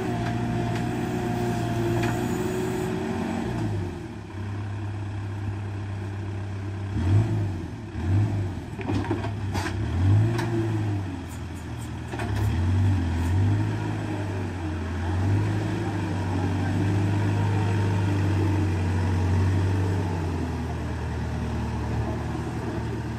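Case 580 backhoe loader's diesel engine working under load, its speed rising and falling again and again as the machine pushes earth and rock. A few sharp knocks come about ten seconds in.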